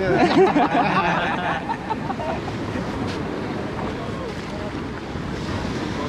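Surf washing onto a beach, a steady rush, with wind on the microphone. A voice is loudest over the first couple of seconds.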